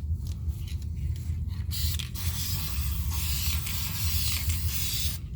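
Aerosol spray can of automotive paint hissing: a few short broken spurts at first, then after a brief pause a steady spray for about three seconds that stops just before the end. A steady low hum runs underneath.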